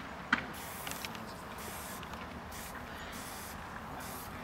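Aerosol spray-paint can spraying black paint in several short bursts of hiss as lettering is painted on a wall. A single sharp click about a third of a second in is the loudest sound.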